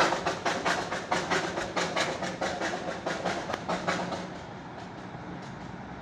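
Darjeeling toy train running on its narrow-gauge track, a rapid regular beat of about five a second that fades away about four seconds in as the train moves off.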